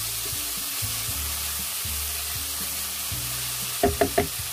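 Sliced onion, capsicum and carrot sizzling in oil in a non-stick wok while being stirred with a silicone spatula, a steady hiss. Near the end come three short, louder scrapes or knocks of the spatula against the pan.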